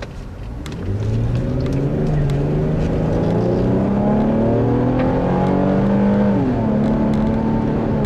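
Infiniti FX35's 3.5-litre VQ35HR V6 heard from inside the cabin while accelerating: the engine note climbs steadily, drops with an upshift about six seconds in, then holds. A very racy noise.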